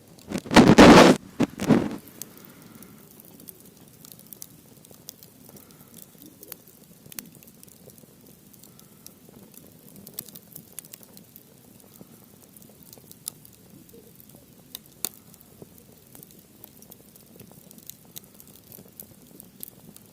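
Campfire crackling, with sparse, irregular sharp pops over a faint steady hiss. About half a second in there is a loud, brief rushing noise, and a shorter one follows about a second later.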